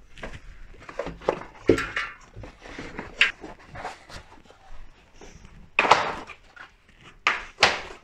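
Bicycle tyres and wheels being pulled apart from a tangled pile: irregular rubbing, rustling and knocks, with the loudest thuds about six seconds in and twice near the end.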